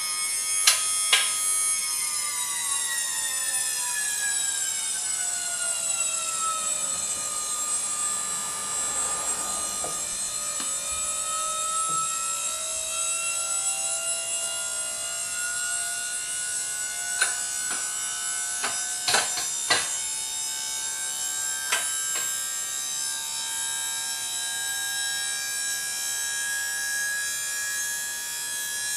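Electric hydraulic pump of a portable scissor car lift running as it raises the car: a steady whine that falls in pitch over the first several seconds and then holds level, with a few sharp clicks in the second half.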